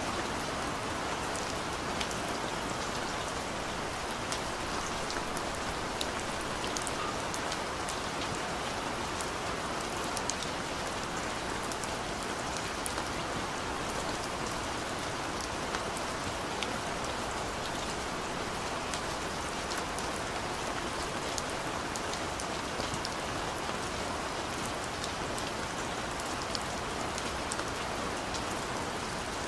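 Steady rain, an even hiss with scattered tiny drop ticks.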